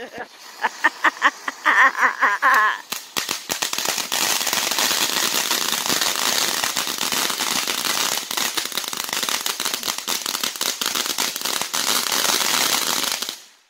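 Crackling ground fountain firework: from about three seconds in, a dense, steady crackle of countless tiny pops as it sprays sparks. It cuts off sharply near the end.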